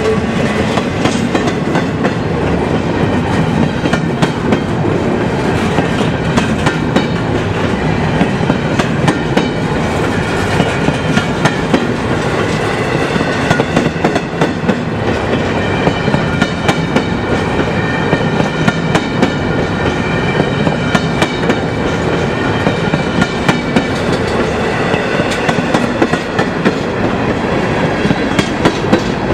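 Long freight train's cars rolling past on a steep grade, their wheels clicking steadily over the rail joints, with high ringing tones from the wheels on the rails.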